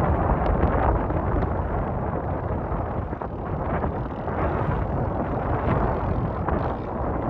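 Loud, steady rumbling noise with wind buffeting the microphone.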